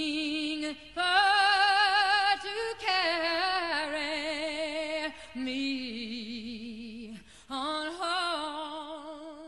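A woman singing solo, holding long notes with strong vibrato in short phrases split by brief breaks; the last note fades away near the end.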